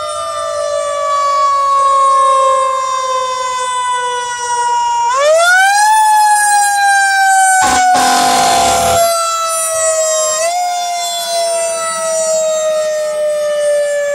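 Fire truck siren wailing, its pitch slowly falling, then climbing sharply about five seconds in and sliding down again. A loud, noisy blast lasting about a second cuts across it a little past the middle.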